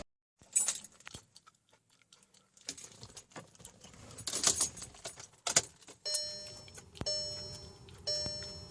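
Car keys jangling and clicking, then, from about six seconds in, a Mk6 Volkswagen TDI's dashboard warning chime ringing about once a second with the engine not running.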